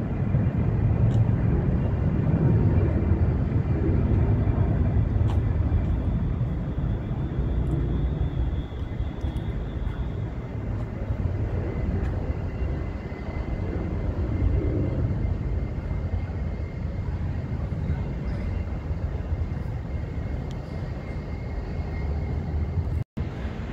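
Jet aircraft engine noise: a steady low rumble with a faint high whine over it, cut by a brief dropout near the end.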